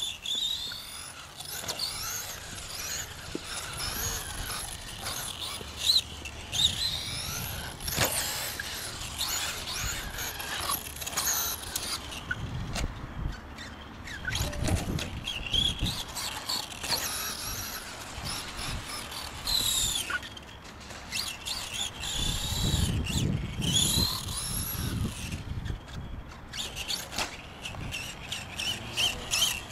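High-pitched whine of a radio-controlled car's brushless electric motor (6900 kV, Mamba Max system), rising and falling in pitch again and again as the car accelerates and slows, with stretches of low rumbling and a sharp knock a third of the way in.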